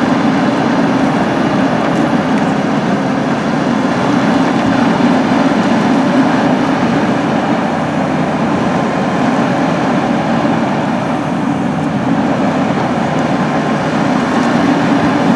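Caterpillar 320C L tracked excavator's diesel engine running steadily under load while its boom and bucket work.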